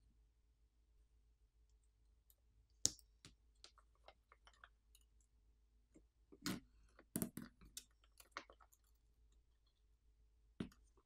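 Faint, scattered clicks and taps of small repair tools and parts being handled on a smartphone during disassembly. The sharpest click comes about three seconds in, a quick cluster follows in the middle, and one more near the end.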